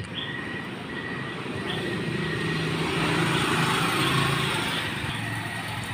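A vehicle passing by: a rushing noise with a low hum under it that swells to its loudest about three to four seconds in and then fades.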